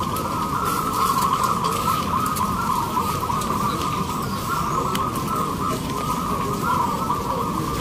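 Chorus of many zebra doves (perkutut) cooing at once from their contest cages, merging into a continuous warbling trill pitched around 1 kHz, over a low crowd murmur.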